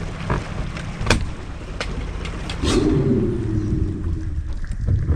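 Boat motor running with a steady low rumble, with a few sharp knocks in the first half and a louder pitched drone joining about two and a half seconds in.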